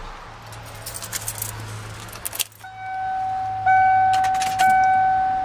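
Keys jangling on the key ring at the steering column of a 1994 Ford F-150, then the truck's dashboard warning chime sounding a steady electronic tone that repeats about once a second.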